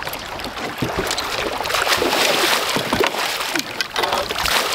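A hooked largemouth bass thrashing at the water's surface beside a boat: irregular splashing and sloshing of water over a steady rush of noise.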